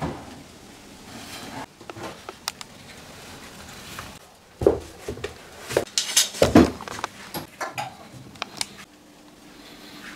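Scattered clinks and knocks of metal objects being handled, the two loudest clusters about halfway through. A faint steady hum starts near the end.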